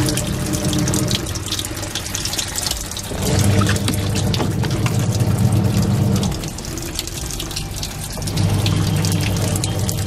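Water pours from the inlet into the plastic wash tub of a Videocon semi-automatic twin-tub washing machine, rinsing it clean. Under the water, the machine's wash motor hums in stretches of about three seconds with short pauses between.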